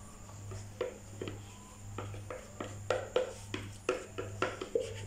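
Plastic spatula scraping and knocking inside a plastic cup, a run of short irregular scrapes that come faster and louder from about two seconds in, as the last thick soap batter is scraped out into the mold.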